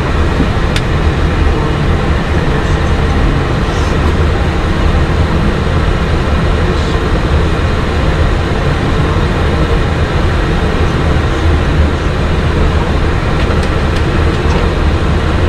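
Steady flight-deck noise of a Boeing 737 MAX 8 on the ground: a constant low rumble with a hiss of airflow over it, unchanging throughout.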